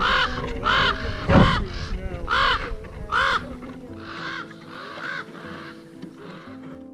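A bird calling over and over, roughly once a second, each call a short rasping cry that rises and falls; the calls grow fainter after about four seconds. Soft background music runs underneath.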